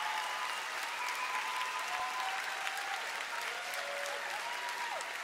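Concert audience applauding steadily after a song ends, with a few whistles gliding over the clapping.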